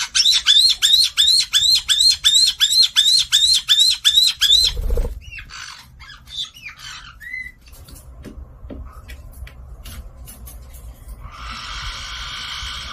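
Black-headed caique calling: a rapid run of about fifteen high-pitched, repeated calls at roughly three a second over the first four seconds, then a few softer calls and clicks. Near the end a harsh, noisy alarm call begins.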